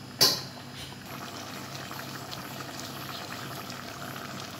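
Chicken curry simmering in an aluminium pot, bubbling steadily with small pops. One sharp clank just after the start is the loudest sound.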